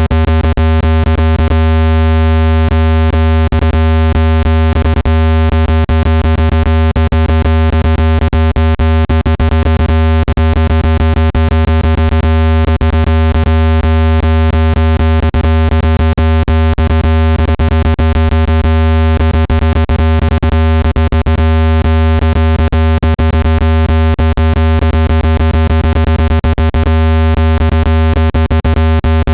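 Loud, steady, synthesized low tone with a stack of unchanging overtones, broken by frequent brief clicks. It is a speaker water-ejection tone, played at full volume so the speaker vibrates and drives trapped water out of a phone's speaker grille.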